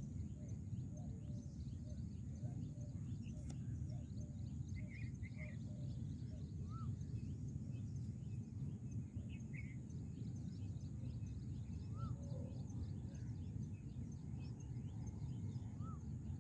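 Outdoor park ambience: a steady low rumble with many small bird chirps scattered throughout, and a short rising-and-falling bird call heard three times a few seconds apart.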